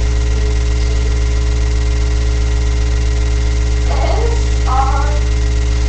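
Loud, steady low electrical hum with a stack of even overtones. A faint voice comes in briefly about four seconds in.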